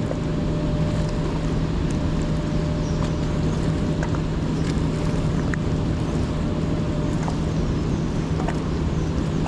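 Wind buffeting the microphone under a steady low hum, with a faint thin whistle that stops about seven seconds in.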